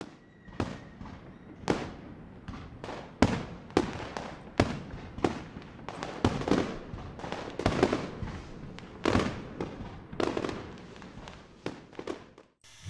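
Firecrackers going off one after another: irregular sharp bangs, each with a short echoing tail.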